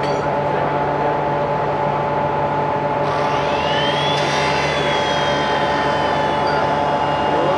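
Series 711 electric train running, heard from inside the car with the window open: steady rolling noise under a constant electrical hum, with a high whine that rises about three seconds in and then slowly falls.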